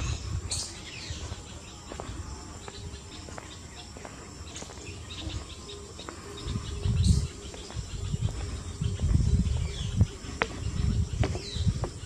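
Wild birds calling with short chirps now and then over a faint steady high insect drone, with irregular low rumbles on the microphone that are loudest in the second half.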